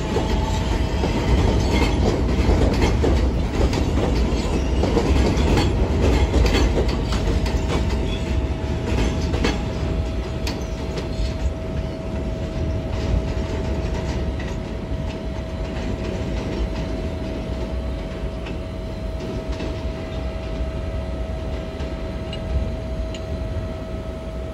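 R160 subway train pulling away along elevated track, its wheels clattering over rail joints and switches, with a steady tone underneath. The clatter fades slowly as the train moves off.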